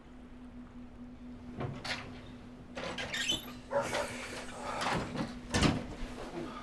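Bedclothes rustling and irregular bumps and scrapes as a man scrambles out of bed, over a steady low hum. One short squeak about three seconds in.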